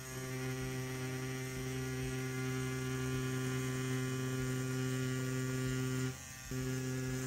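CNC P6 adjustable-stroke rotary tattoo pen running at about 9 volts, a steady electric buzz while the needle lines practice silicone. It cuts out briefly about six seconds in and starts again.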